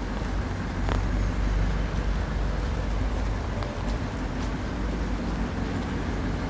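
Traffic on a rainy city street: a motor vehicle's engine running close by over the steady hiss of rain, with a few light ticks.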